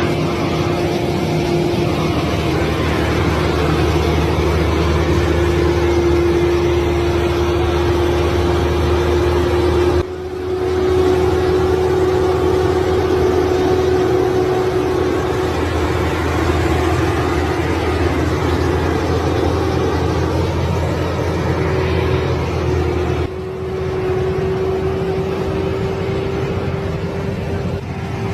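Excavator's diesel engine running steadily, with a constant whine over its low rumble. The sound breaks off abruptly about 10 seconds in and again about 23 seconds in, then carries on at the same level.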